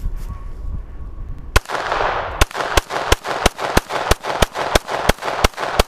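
Glock 17 9 mm pistol fired rapidly: about a dozen shots at roughly three a second, starting about a second and a half in, each followed by a short echo. Before the first shot, wind rumbles on the microphone.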